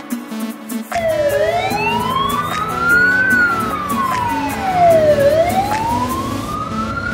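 Fire engine siren wailing, rising and falling slowly in long sweeps. It starts about a second in, over background music with a steady beat.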